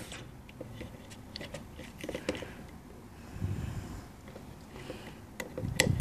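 Faint scattered clicks and rustles of a jumper wire being handled and pushed into the pin header of an Arduino Uno, loudest near the end.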